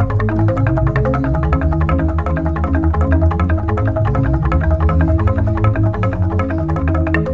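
Jegog, a Balinese gamelan of giant bamboo tubes, played with mallets in an instrumental piece: fast interlocking strikes over deep, sustained bass tones.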